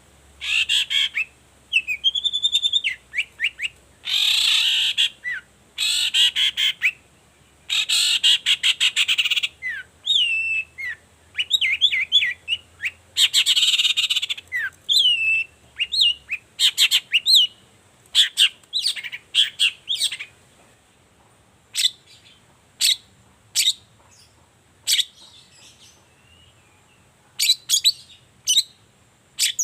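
Long-tailed shrike (cendet) singing. It gives loud, harsh rasping chatters mixed with short whistled notes that slide in pitch. In the second half it turns to a loose run of sharp, clipped single notes.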